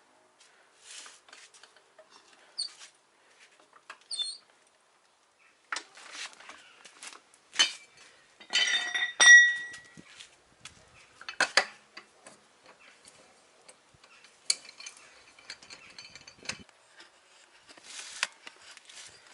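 Metal tools or parts being handled: scattered clinks, knocks and clatter, with the loudest clink about nine seconds in ringing briefly.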